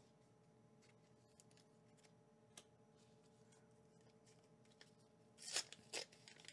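Near silence with a few faint ticks of cards being handled, then, about five and a half seconds in, a short run of loud crinkly tears as a Pokémon promo pack's wrapper is ripped open.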